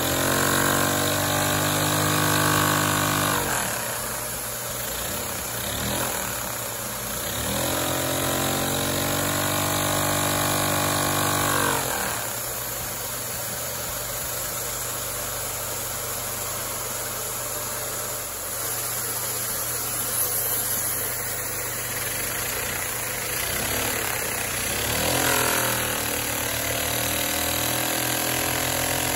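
One-cylinder LEGO butterfly vacuum engine running fast. It gives a pitched mechanical hum that rises and falls in pitch three times, near the start, around the middle and near the end, as the engine speeds up and slows. Between these swells it runs as a rougher, less tonal noise.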